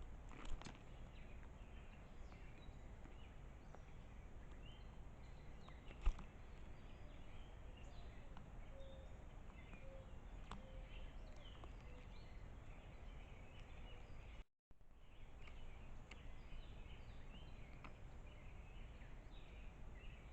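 Faint outdoor ambience with a low rumble and many small, distant bird chirps scattered throughout. There are two sharp clicks, the louder about six seconds in, and the sound cuts out completely for a moment about two-thirds of the way through.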